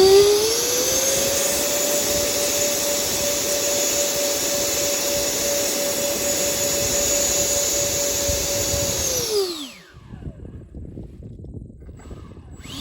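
Electric ducted fans of an FMS A-10 RC jet run up on the ground. The whine climbs in pitch during the first second or two, holds steady for about seven seconds, then spools down and stops about nine and a half seconds in. This is a static test for a motor or ESC that seemed to be failing in flight.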